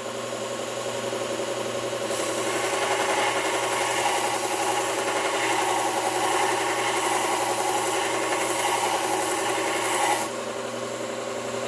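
Belt sharpener running steadily; about two seconds in, a steel chisel is pressed to the abrasive belt to grind its bevel, adding a rasping, hissing grind that stops about a second and a half before the end, leaving the machine's hum.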